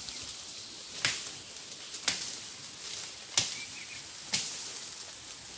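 Four short, sharp snaps or clicks, roughly a second apart, over a faint steady outdoor hiss, with a brief faint high chirp near the middle.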